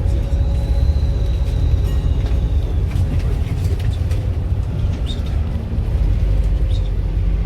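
Volvo B7RLE bus's turbocharged diesel engine running with a heavy low rumble. A thin high whistle from the turbo is heard for the first two and a half seconds or so.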